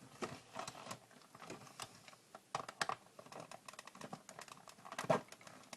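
Small plastic clicks and taps as the back casing of a 1980s Soundesign radio-cassette player is worked and pried at by hand, with a cluster of louder clicks about five seconds in.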